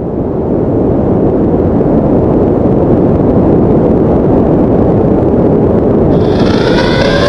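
Loud, steady roaring noise, heaviest in the low end, which swells up at the start. About six seconds in, a siren starts rising over it.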